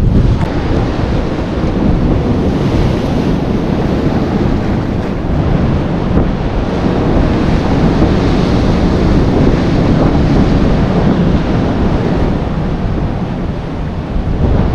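Wind buffeting the microphone over the steady wash of sea surf breaking against the rocks.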